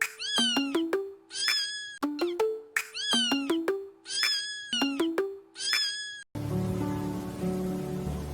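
A cat's meow, repeated about once a second in a rhythmic meme-music edit over short plucked musical notes. Each meow falls in pitch. About six seconds in, the meows stop and different, steadier background music takes over.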